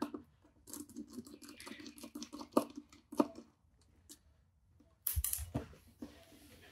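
Light clicking and tapping of a small screwdriver taking two little screws out of a laptop's bracket, with a louder clatter of handled parts about five seconds in.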